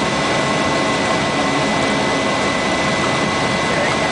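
Cessna 208 Caravan's single turboprop engine and propeller at power during the takeoff roll, heard inside the cabin: a steady loud rush of noise with a constant high whine on top.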